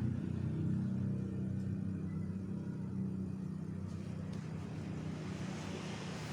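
Salvaged refrigerator compressor running with a steady low hum, easing off slightly in level.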